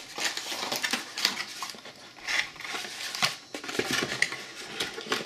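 Cardboard packaging being handled and shifted by hand: irregular rustling and scraping with scattered light taps and clicks.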